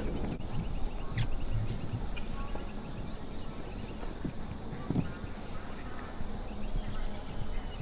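Crickets chirping with a steady high buzz over a low rumble, with a few faint dull thuds around the middle.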